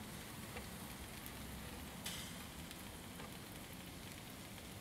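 Faint, steady sizzle of beef slow-cooking on an asado grill over wood coals, with a light tap about two seconds in.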